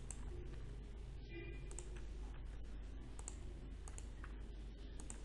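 Faint computer mouse clicks and keyboard keystrokes, a few scattered irregular clicks over a low steady hum.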